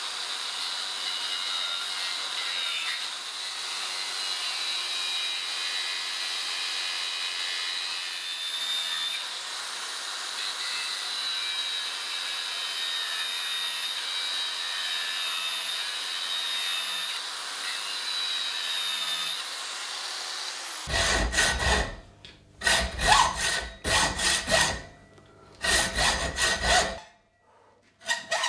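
Angle grinder with a thin cutting disc running with a steady high whine as it cuts into a square steel bar, trimming a saw cut that ran off line; the pitch dips slightly a few times under load. About three quarters of the way in this gives way to louder, irregular rasping strokes with short pauses between them.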